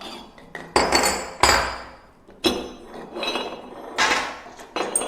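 Stainless steel meat grinder parts (cutting knives, plates and screw) being handled and set down, clanking against each other and the table in a series of sharp metallic knocks that ring briefly, roughly one a second.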